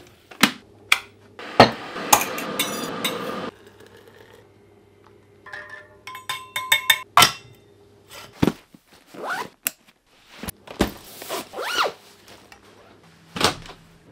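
Tap water running into a plastic kettle for about two seconds, followed by a run of clinks, knocks and scrapes of kitchenware as a hot drink is made and a vacuum flask's lid is screwed on.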